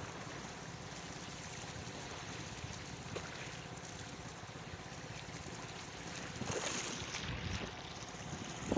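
Steady running of a boat's motor out on the sea, with wind buffeting the microphone and water rushing past; the noise swells a little louder about six and a half seconds in.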